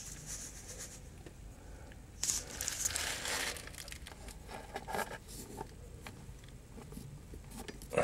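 Faint rustling and crinkling handling noises, loudest about two to three and a half seconds in, followed by a few scattered light clicks.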